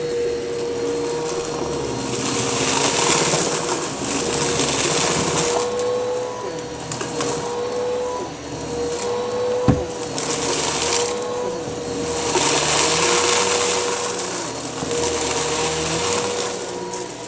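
Eureka vacuum cleaner running, with a steady motor whine under its suction hiss. The hiss swells loudly and fades about four times as the cleaner is worked back and forth, and there is a sharp knock about ten seconds in.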